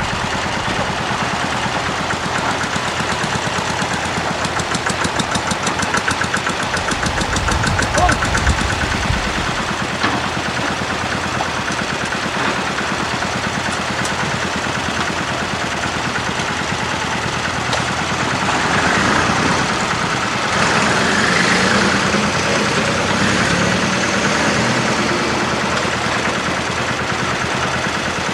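Small farm tractor's engine idling with a fast, even knocking beat. It swells briefly about eight seconds in and again for a few seconds in the second half.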